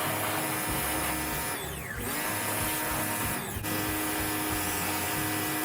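Pressure washer running and spraying water steadily, the motor whine under the hiss of the jet, with two brief dips about two and three and a half seconds in.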